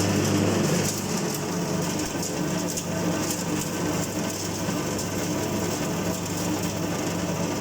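Hookah-tobacco shredding machine running: a steady motor hum with a fine, continuous crackle over it, stepping down slightly in level about a second in.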